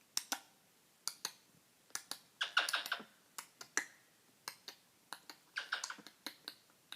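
Pet talking bird making a string of sharp clicks, with short chirping calls about two and a half seconds in and again near six seconds.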